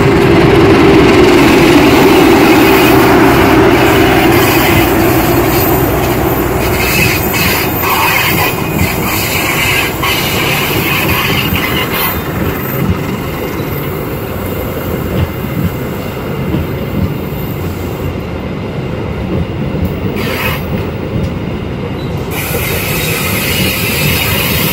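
Argo Wilis passenger train passing close by at reduced speed for track work. The CC 206 diesel-electric locomotive's engine is loudest in the first few seconds. After that the stainless-steel coaches roll past with a steady rumble, wheels clacking over the rail joints and squealing on the curve.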